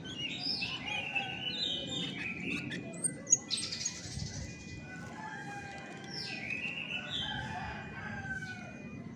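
Chestnut-backed thrush singing: a run of varied whistled and scratchy phrases, with a sharp click about three seconds in.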